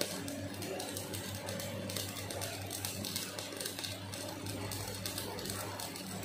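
Electric arc welding: a continuous dense crackle and sputter from the welding arc, over a steady low hum.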